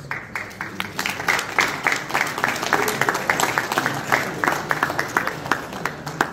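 Audience applauding, with one pair of hands clapping close and sharp, about six claps a second.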